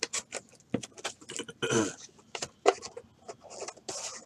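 Trading cards and their packaging being handled on a tabletop: a run of irregular small clicks and taps with brief sliding rustles.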